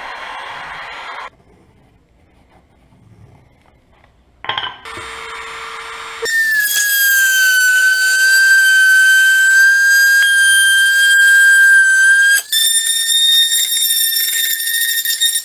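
A heat gun blows for about a second and stops. After a pause, a hand-held rotary tool starts and runs with a loud, steady high-pitched whine as its small bit cuts a circular hole through PVC pipe. Near the end the whine drops out for a moment, then comes back slightly higher in pitch.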